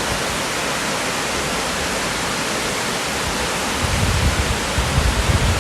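Steady, even rush of a waterfall in full flow, swollen after rain. About four seconds in, irregular low rumbling is added on top of it.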